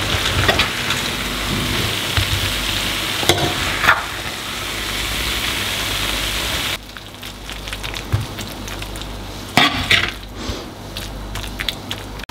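Shrimp fried rice sizzling in a frying pan while a metal spoon scrapes and stirs through it. The sizzle cuts off suddenly about seven seconds in, leaving scattered scrapes and taps of the spoon as the rice is scooped out.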